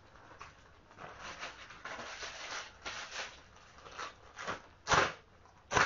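Clear plastic bag filled with tempera paint being handled, its plastic crinkling softly, with two louder, sharp crackles near the end.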